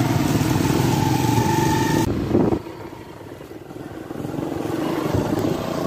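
Small motorcycle engine running under way close by, with a steady whine over the rumble. About two and a half seconds in the sound drops suddenly to a quieter motorcycle engine, which grows louder toward the end.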